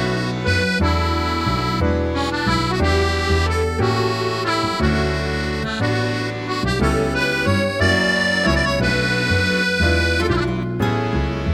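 Background music: an accordion melody with chords over a bass line that changes note every second or so.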